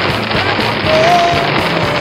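Music with held melody notes, playing over a dense steady hiss of rain and driving noise.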